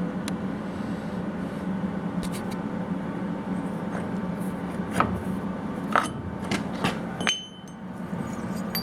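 Steel mounting brackets being handled and tried against a hydraulic cylinder: several separate sharp metal clanks and knocks, one with a short ring, over a steady hum that drops away near the end.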